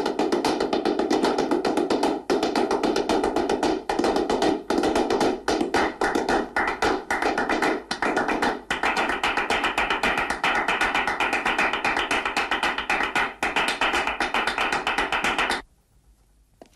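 Film score of dense, rapid percussive clapping, a clattering wash of claps with no tune, which cuts off suddenly near the end.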